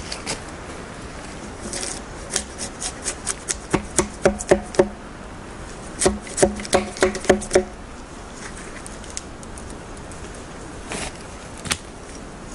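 Drawknife working a log held in a sawbuck: two runs of quick, sharp knocks, about three a second, each with a short ringing tone, and a couple of single knocks near the end.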